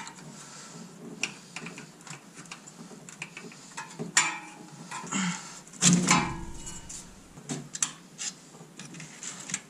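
Metal hand tools, sockets and a wrench, clinking and clanking against engine parts and each other in irregular knocks, with the loudest clanks about four and six seconds in.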